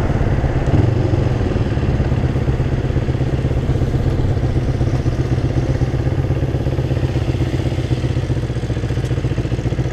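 Kawasaki Ninja 250's engine running steadily at low revs while the motorcycle rolls slowly.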